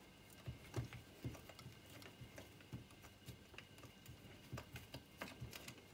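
Faint, irregular small clicks and ticks of a hand screwdriver driving a screw into the plastic frame of a car radiator.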